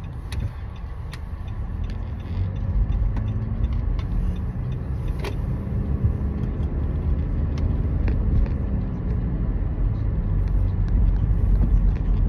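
Inside a moving car: steady low engine and road rumble, with the engine's tone shifting as the car gets under way and a few faint clicks.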